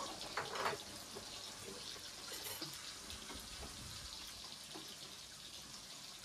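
Pot of chicken wings in coconut milk with lemongrass simmering on the stove, a steady bubbling hiss. A brief louder sound about half a second in.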